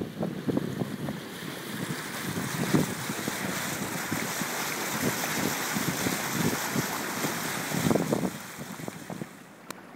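Bow wave rushing and splashing along the wooden hull of a futreau, a flat-bottomed river sailboat, running under sail, with wind gusting on the microphone. The rush is steady through the middle and dies down near the end.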